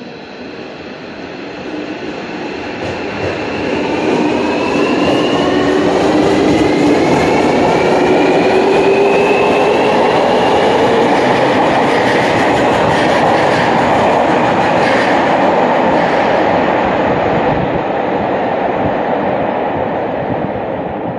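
Subway train pulling out of the platform on the Fukuoka City Subway Airport Line: the traction motors' inverter whine rises steadily in pitch as it accelerates, over the running noise of wheels on rail. The noise grows louder over the first few seconds and eases off near the end.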